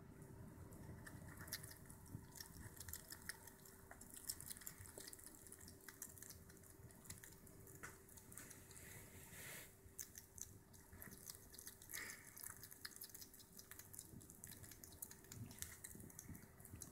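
African pygmy hedgehog chewing mealworms and nosing through the oats: faint, irregular small clicks and crunches, with a faint steady hum behind.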